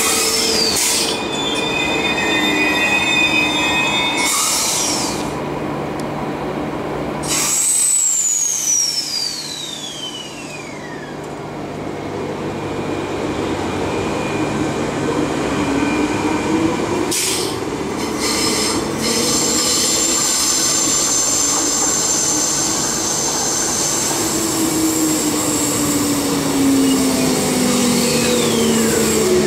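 Transperth A-series electric multiple-unit trains running through the station, with a steady rumble of wheels on rail and whining tones that glide up and down in pitch. About eight seconds in, a high whine falls steeply; a shorter falling whine comes near the end.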